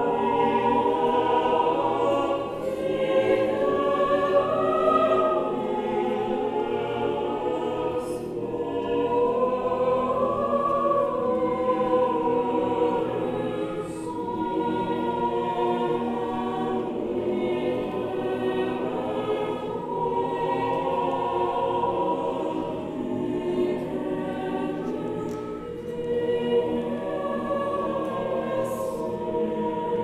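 Choir singing a slow choral piece in sustained chords, the voices swelling and easing back with a few brief soft dips.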